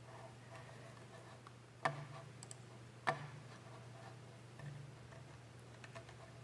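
Two sharp clicks a little over a second apart, about two and three seconds in, over a faint low steady hum in a quiet room.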